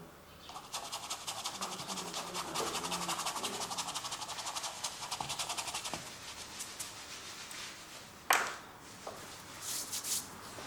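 Paintbrush scrubbing acrylic paint onto canvas in rapid, even back-and-forth strokes for about five seconds. Then a single sharp knock, the loudest sound, and a couple of short rustles near the end.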